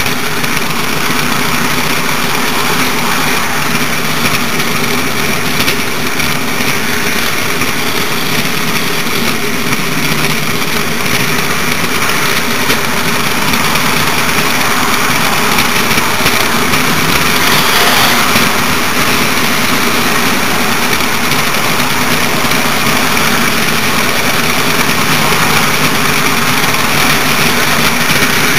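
HO scale model train running: a steady whir of the locomotive's motor and its wheels rolling on the track, picked up right beside the train.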